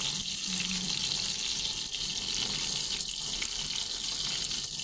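Gyoza frying in oil in a non-stick pan: a steady, high sizzle.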